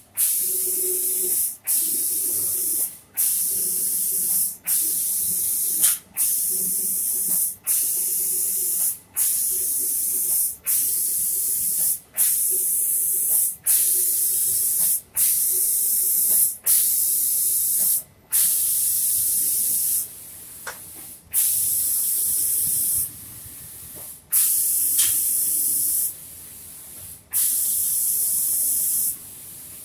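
Automatic spray gun of a furniture spray-painting machine hissing as it sprays a finish coat. It runs in repeated bursts of about a second and a half, each cut off sharply for a moment as the machine switches the gun on and off between passes. The gaps grow longer near the end.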